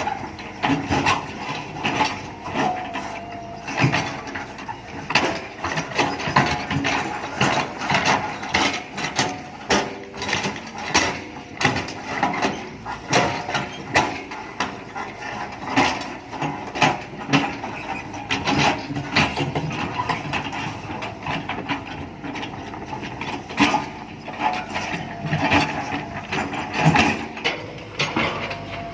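JCB 2DX backhoe loader at work: a continuous run of irregular metallic clanks, rattles and knocks, several a second.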